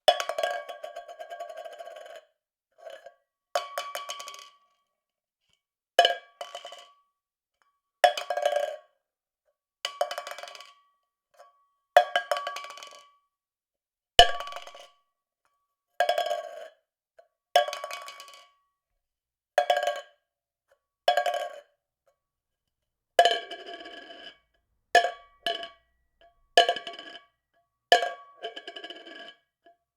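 A tin can dropped over and over, about every two seconds. Each fall is a sharp metallic clatter with a few quick bounces, ringing briefly and dying away.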